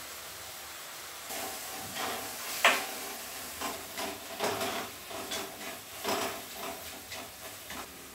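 Onion-tomato masala with green chillies sizzling in a brass kadai while a spatula stirs it, with irregular scrapes and knocks against the pan. The stirring starts about a second in, and the loudest knock comes near three seconds in.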